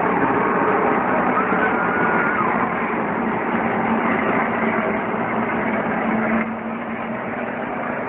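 NASCAR Xfinity Series stock cars' V8 engines running on the track, heard as a steady, dense din.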